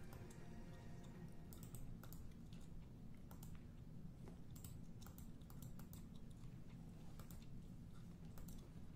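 Faint typing on a computer keyboard: irregular keystroke clicks in short runs.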